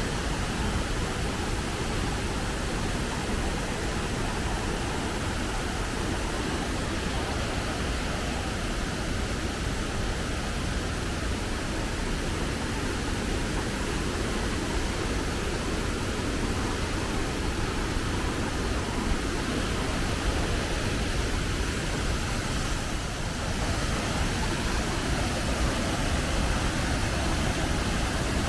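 Steady roar of a waterfall, even rushing water noise with no change in character.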